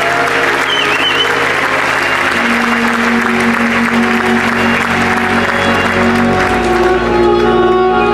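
Audience applause over the act's background music. The applause dies away from about six seconds in while the music carries on. A short whistle-like glide comes from the audience about a second in.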